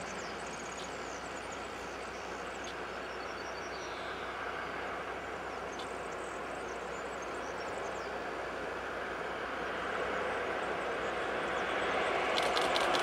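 A DB class 110 electric locomotive hauling a passenger train approaches, its running noise growing steadily louder. Birds chirp faintly in the first few seconds, and a quick run of sharp clicks comes near the end as the train draws close.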